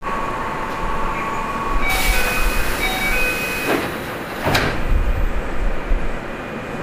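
Inside a Keio 7000 series train stopped at a station: a short chime melody of stepped notes plays. About four and a half seconds in, the sliding doors close with a burst of air and a thump.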